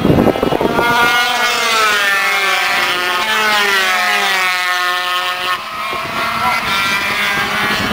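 Racing motorcycles running at high revs as they come down the straight and pass; the engine note falls steadily in pitch over several seconds as the leading bike goes by, then the sound thins out near the end.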